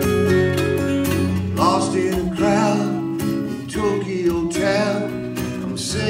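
Live acoustic guitar music during an instrumental break between verses: steadily strummed chords, with a wavering lead line that bends in pitch entering about a second and a half in.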